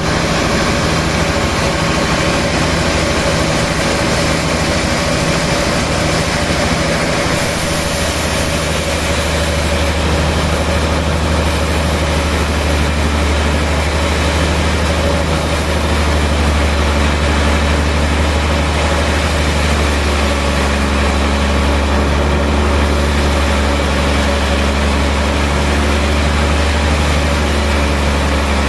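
Sawmill machinery running steadily with a loud, low engine-like hum; the sound grows heavier about seven seconds in.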